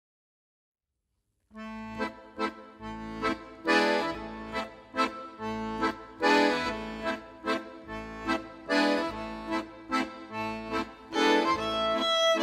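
Background music: a tune over a steady held low note with a regular beat, starting about a second and a half in after silence.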